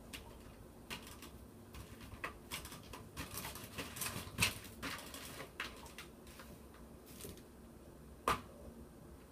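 Quiet clicking and crinkling of fingers picking chocolates out of a plastic chocolate-box tray, mixed with the mouth sounds of eating. The clicks cluster in the middle, and one sharper click comes near the end.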